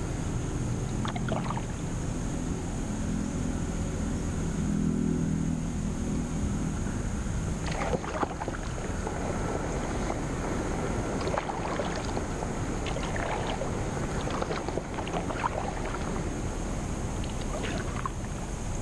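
Kayak paddling on calm water: scattered splashes and drips from the paddle over a steady background rush. A low hum fades out in the first six seconds.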